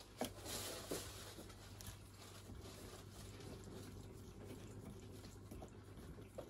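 Screwdriver turning screws into a plastic chest-freezer lid handle: faint scraping and ticking, with a few sharp clicks near the start.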